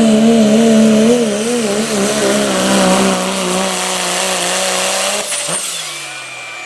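Dodge Ram pickup's Cummins diesel running flat out under load as it pulls a weight-transfer sled, its engine note wavering with the wheel spin. About five seconds in the throttle comes off and the engine winds down, and a steady high whistle sounds near the end.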